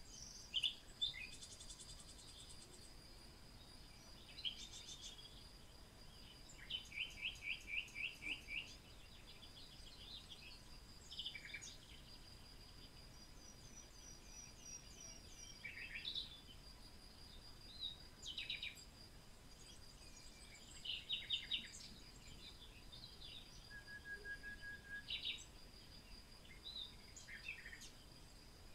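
Several songbirds chirping and singing in short calls and trills, over a steady high-pitched tone.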